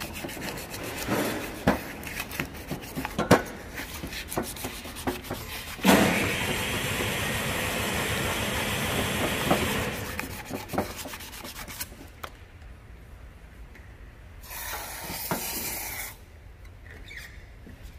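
Fine sandpaper rubbing by hand inside the scored cylinder liner of a Honda GX35 brush-cutter engine, in scratchy strokes broken by small knocks. A steady hissing rush runs for about four seconds from about six seconds in, and the rubbing is quieter near the end.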